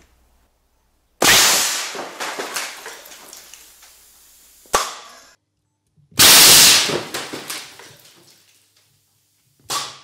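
Large pneumatic air cannon firing: a sudden loud blast of released compressed air about a second in and again about six seconds in, each followed by a rattle of debris that dies away over a few seconds. A single sharp crack comes near five seconds and a short burst near the end.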